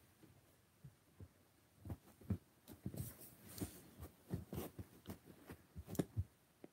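Irregular soft bumps and rustling close to the microphone, starting about two seconds in, as a dog moves against the phone and the bedding around it.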